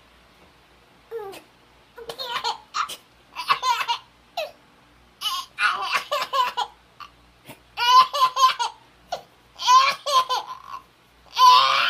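Seven-month-old baby laughing in repeated bursts, each a run of quick laughs, starting about a second in.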